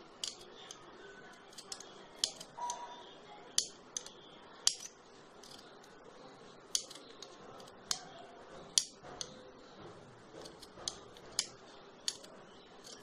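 Large steel scissors snipping through macramé cords, trimming the fringe ends short: about a dozen sharp snips at uneven intervals.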